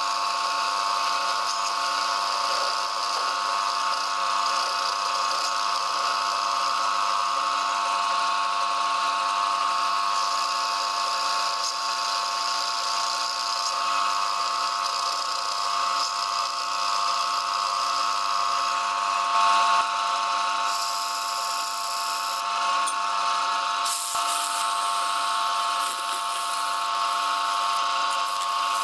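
Metal-turning lathe running with a steady whine, a cutting tool boring out the centre hole of a spinning glued bamboo-parquet disc. In the last few seconds a higher hiss joins in as sandpaper is pressed against the spinning disc.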